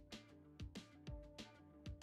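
Quiet background music with a steady drum beat and sustained notes.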